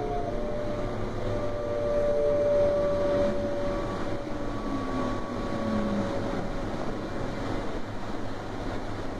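DB Class 425 electric multiple unit heard from inside: the traction inverters and motors whine in several tones that glide slowly downward over steady running noise.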